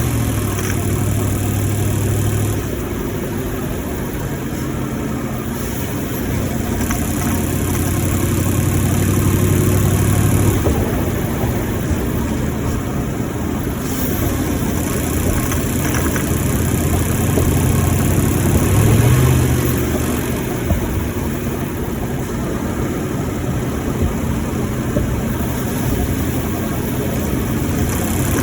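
2018 Ford F-150's 5.0-litre V8 engine running while driving, its note rising and falling several times with the loudest swell about two-thirds through. The owner reports an engine knocking noise while driving.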